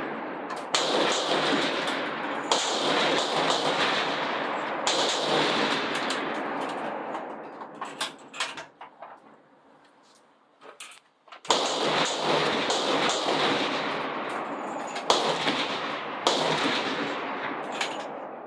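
About six rifle shots from benchrest rifles along a covered firing line, each a sharp crack followed by a long rolling echo that dies away over several seconds. The shots fall in the first five seconds and again from about eleven seconds on. Between them is a quieter gap with a few faint clicks.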